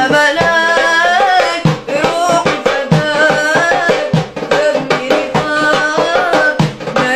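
A young boy singing a Tunisian song in long, ornamented, wavering notes, accompanied by a goblet hand drum struck in a quick, steady rhythm.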